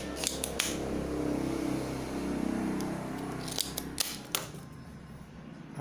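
Sharp clicks and light clatter of small metal hand tools being handled during electronics repair, in two clusters, with a low steady hum between them.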